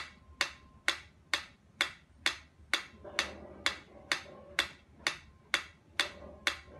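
Mechanical pyramid metronome ticking steadily, a little over two ticks a second.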